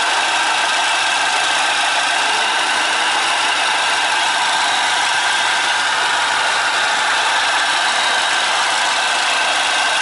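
Renault Mégane's 1.5 dCi (K9K) four-cylinder diesel engine idling with a steady, somewhat strange noise. The mechanic traces the noise to the accessory belt drive and thinks it comes from a worn bearing on the air-conditioning compressor pulley.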